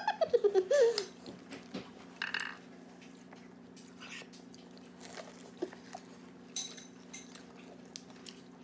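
A brief high, wavering voice-like cry in the first second. After it come quiet chewing and biting sounds as a fried bean-sprout spring roll and rice are eaten, with small scattered clicks over a steady low hum.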